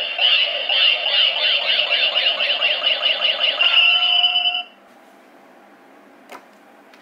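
DX Neo Decade Driver toy belt playing its electronic transformation sound effect: a fast run of repeated synthetic tones that stops about four and a half seconds in. A faint click follows near the end.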